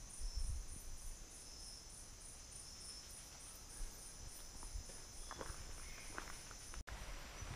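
Insects calling in a steady, high-pitched chorus with an even, rapid pulse, and soft footsteps on the trail underneath.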